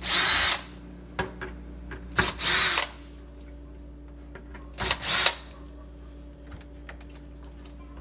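Cordless drill/driver with a 1/4-inch socket running in three short bursts about half a second long, each a whine that rises and falls, backing out the screws of a refrigerator's cardboard rear access cover.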